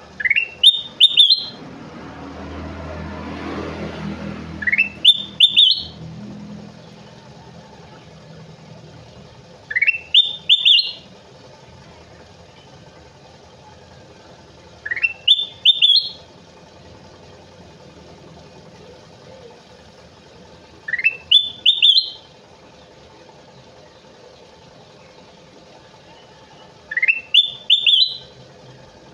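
Kutilang emas, a bulbul, singing the same short phrase six times, about every five seconds: a few quick whistled notes climbing in pitch. A low rumble passes under the song from about two to six seconds in.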